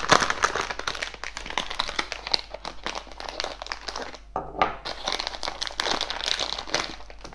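Plastic packaging bag crinkling and rustling as it is handled and opened by hand, with a brief lull about four seconds in.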